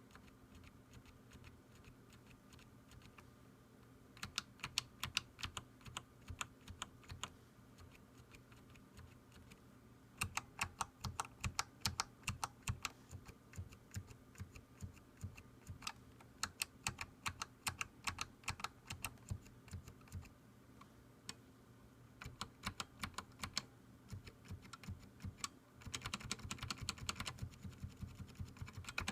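Keyboard with Matias Quiet Click tactile switches being typed on in runs of quick keystrokes with pauses between them. Some presses give a sharper, louder click, which the typist puts down to pressing keys off-centre at an angle. A short stretch of steady hiss sounds under the typing near the end.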